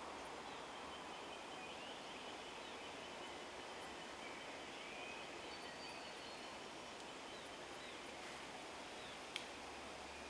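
Faint bush ambience: a steady hiss with thin, scattered bird calls and chirps, and one sharp click about nine seconds in.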